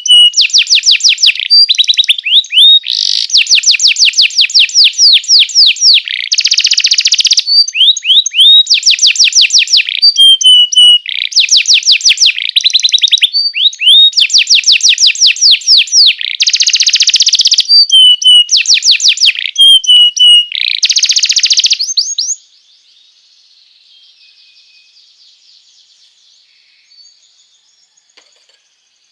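Domestic canary singing: long rapid trills alternating with short whistled notes and rolls. The song breaks off about three-quarters of the way through, leaving only faint background sound.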